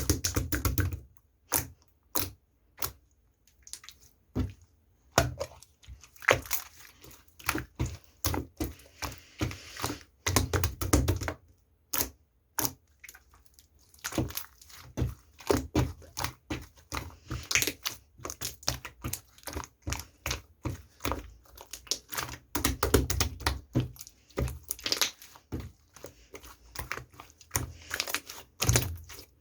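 Irregular clicks, taps and thunks, several a second, with crinkling in between, as of small objects, paper or plastic being handled at close range.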